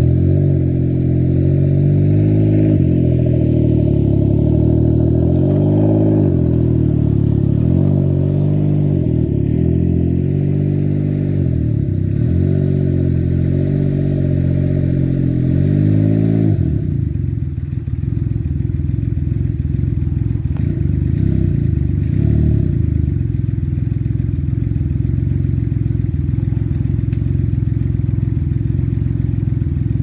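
Can-Am Ryker Rally's three-cylinder engine running through a Brannon King aftermarket exhaust fitted with a baffle, revved so the pitch rises and falls again and again, then settling to a steady idle about 17 seconds in.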